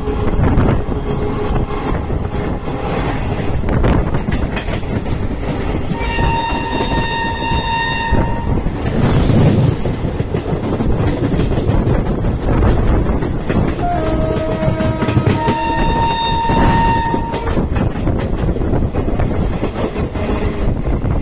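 Steady rumble and clatter of a moving passenger train heard from on board. Over it a train horn sounds: a blast of about two seconds six seconds in, then a lower-pitched horn that drops slightly in pitch followed straight away by a higher blast, around fourteen to seventeen seconds in. A brief surge of rushing noise comes around nine seconds in.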